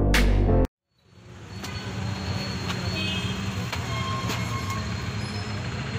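Background music cuts off abruptly near the start. After a brief silence, steady street traffic noise fades in and continues, with a few faint clicks.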